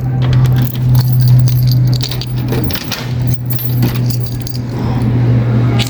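A bunch of keys jangling and clicking in the hand, over a steady low hum.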